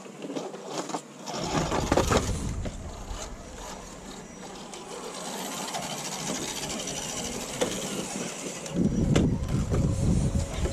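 Small electric motor and gears of a radio-controlled scale rock crawler whirring as it crawls over rock, with a low rumble coming in about a second in and growing louder near the end.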